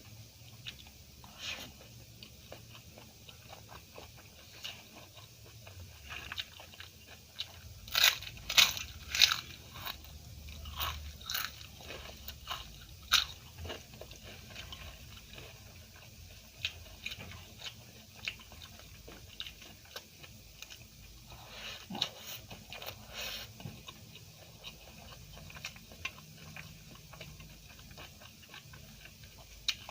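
Close-miked eating: a person biting and chewing crunchy food. Loud crisp crunches come in clusters about eight to thirteen seconds in and again around twenty-two seconds in, with quieter chewing between.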